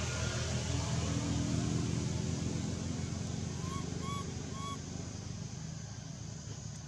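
A baby long-tailed macaque gives three short, high calls about half a second apart, a little under four seconds in. Under them runs a low engine drone that slowly fades.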